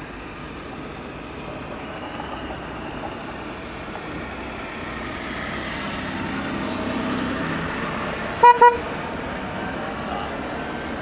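Two short, loud toots of a vehicle horn in quick succession about eight and a half seconds in, over the rumble of a vehicle engine that grows louder and then eases off.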